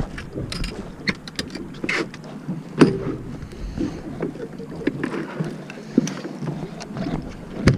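Irregular clicks and knocks of handling aboard a small fishing boat, over the boat's steady background, with a louder thump about three seconds in and another near the end.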